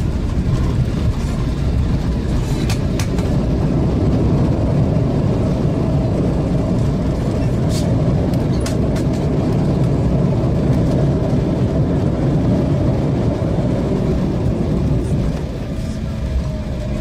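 Inside a jet airliner's cabin during the landing rollout: a steady, loud rumble of the engines and the wheels on the runway, with a few light knocks and rattles, easing off a little near the end as the plane slows.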